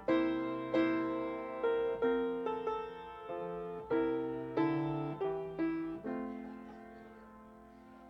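Piano playing the closing bars of a slow piece: a string of struck chords, then a final chord about six seconds in that is left to ring and die away.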